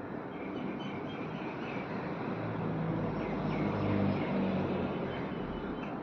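Steady outdoor background noise with a low rumble that swells for a couple of seconds in the middle, and a few faint bird chirps in the first half.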